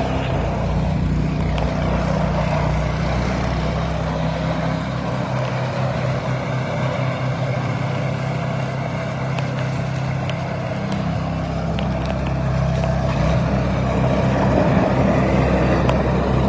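Snowblower engine running steadily under load while clearing snow, its note easing slightly in the middle and picking up again near the end.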